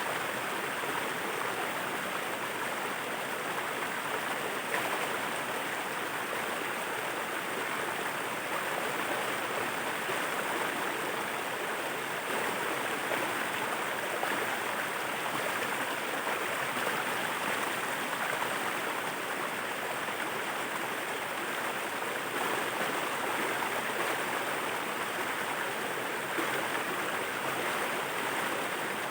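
Waterfall water pouring and splashing in a steady, unbroken rush.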